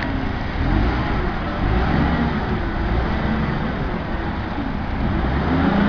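Propane-fuelled Caterpillar forklift's engine running steadily as the truck drives through a course.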